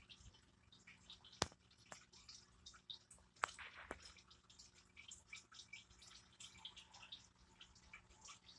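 Faint trickling and dripping of water in an aquarium filter, a steady patter of small drips. Three sharper clicks stand out, one about a second and a half in and two more a couple of seconds later.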